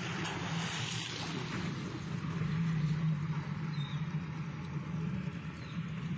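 Small boat's outboard motor running with a steady low hum over an even hiss of water and wind.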